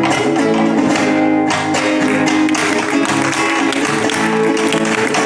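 Acoustic guitar playing, the start of a folk song's instrumental introduction.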